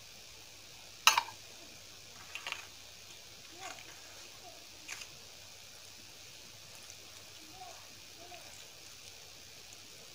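A steel bowl knocks sharply against a steel thali plate once, followed by a few lighter clinks. Then comes soft, wet squishing as rice and dal are mixed by hand.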